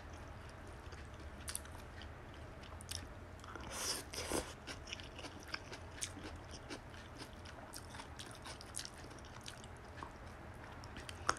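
A woman chewing a mouthful of bún cá (fish noodle soup): faint, scattered wet mouth clicks and smacks, with a slightly louder noisy stretch about four seconds in.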